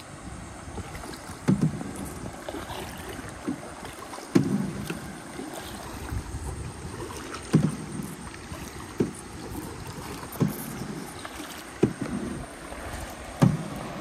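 Kayak paddle strokes in the water: a short splash-knock every second and a half or so, with a rush of water between strokes.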